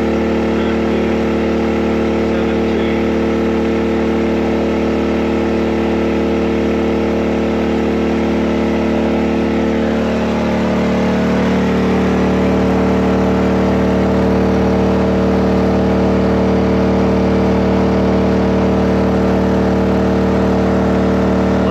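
Portable generator engine running at a steady speed. About ten seconds in its pitch dips briefly, and it then runs a little louder.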